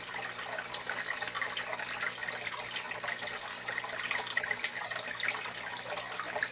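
Aquarium filter outflow pouring steadily into a turtle tank, with splashing as the turtle feeds at the water's surface and a low steady hum underneath.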